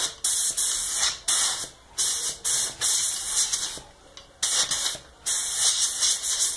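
Compressed-air blow gun blasting at the top of a motorcycle fork tube in about a dozen short bursts with brief gaps between them.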